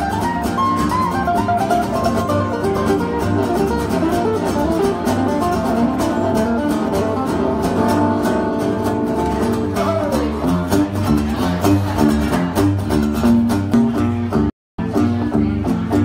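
Two acoustic guitars playing live without singing: one strums a steady rhythm while the other plays a lead line with string bends and a run sliding down about ten seconds in. The sound drops out for a split second near the end.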